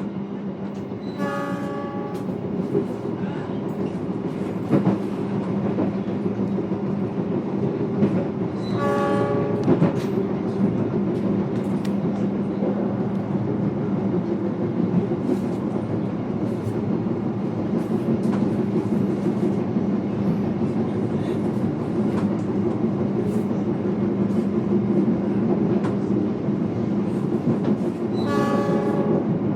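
Steady running noise inside a moving passenger train carriage, a low rumble with a constant hum and scattered clicks of wheels over the rails. The train's horn sounds briefly three times: about a second in, about nine seconds in, and near the end.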